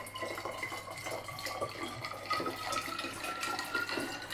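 Water poured in a steady stream into a glass bottle, splashing, with a ringing note that rises slowly in pitch as the bottle fills.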